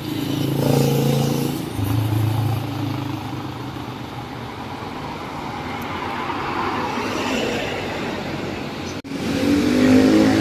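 Road traffic: motor vehicles passing close by with engines running, one louder in the first couple of seconds and another coming up near the end.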